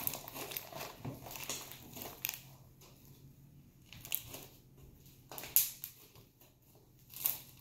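Fluffy slime being squeezed and stretched by hand, giving scattered soft crackles and squelchy pops with quiet gaps between.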